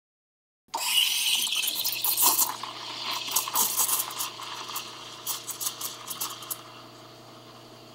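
Espresso machine steam wand hissing and sputtering in a stainless steel pitcher of milk as it stretches (aerates) the milk, with sharp crackling chirps of air being drawn in, over a low steady hum. It starts abruptly just under a second in and grows quieter and smoother toward the end.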